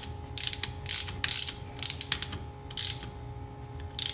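Hand ratchet clicking in short bursts as it snugs the nut on a Toyota starter's contact terminal bolt. The nut is tightened only gently because the bolt sits in a plastic insulator.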